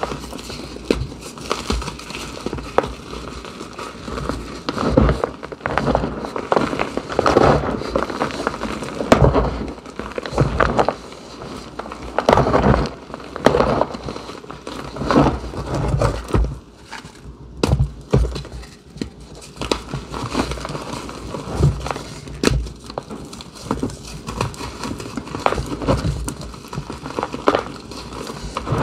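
Hands crushing glitter-covered blocks of gym chalk into loose chalk powder: irregular crumbling and crackling as the blocks break apart and the powder is squeezed, in uneven bursts with brief quieter pauses.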